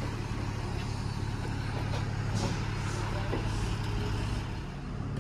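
Steady low hum of an idling diesel engine.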